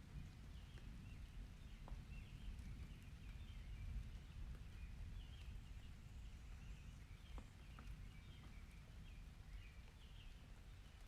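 Faint storm ambience: a steady low rumble of distant thunder and rain, with short chirping calls scattered throughout and a few sharp drips.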